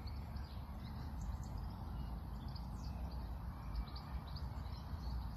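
Outdoor ambience: a steady low rumble of wind on the microphone, with faint, scattered bird chirps.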